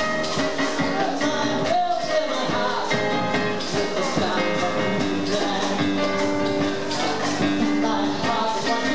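Live music from a stage show with a steady beat and sustained instrument tones, with a little singing, heard through a camcorder's microphone.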